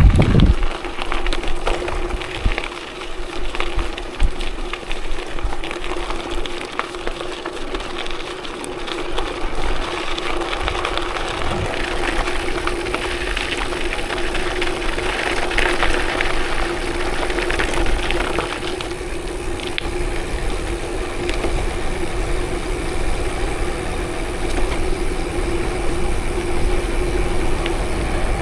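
A vehicle's engine running steadily while driving a forest gravel road. It has a held hum and a low rumble, with scattered knocks and rattles in the first half.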